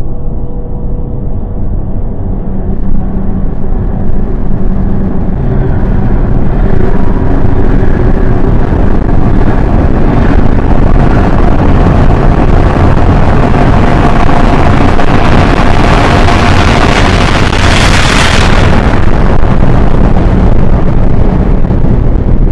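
Loud cinematic sound-design build: a deep rumble that swells gradually and peaks in a hissing whoosh about 18 seconds in.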